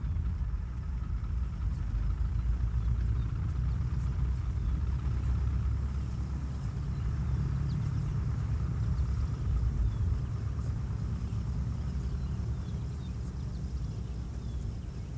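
Steady low engine rumble, with a faint hum higher up.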